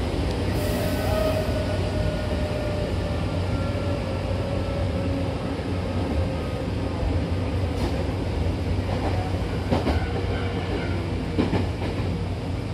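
Hankyu Takarazuka Line electric train running, heard from inside the carriage: a steady rumble of wheels on track, with a faint whine slowly falling in pitch over the first few seconds and a few clacks over rail joints in the second half.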